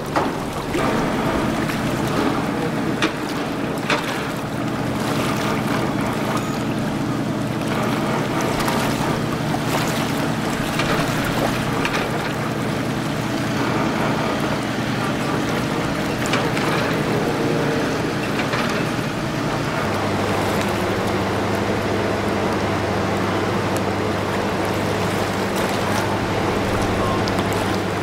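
A boat engine droning steadily over wind and water noise, its note changing to a lower, different hum about two-thirds of the way through.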